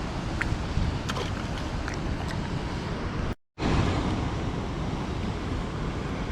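Steady rushing of spillway water with rain and wind buffeting the microphone, a few faint clicks in the first couple of seconds. The sound drops out completely for a moment about three and a half seconds in, then the same rushing resumes.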